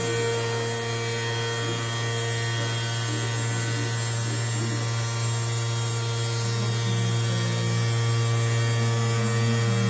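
CNC machine with a 1300 x 2500 mm table running, giving a steady electric hum and whine, a little louder in the second half.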